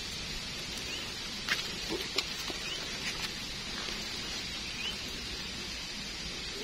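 A small knife scraping and trimming the stem of a freshly picked bitter bolete mushroom, with a few short sharp clicks about one and a half to two seconds in. Underneath runs a steady high outdoor hiss with faint small rising chirps.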